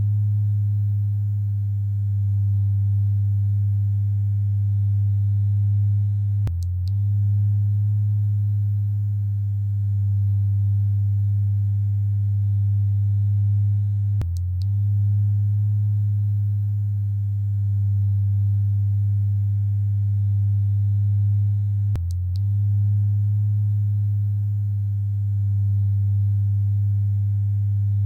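Electric vibrator buzzing with a steady low hum. It briefly breaks with a click three times, about every eight seconds.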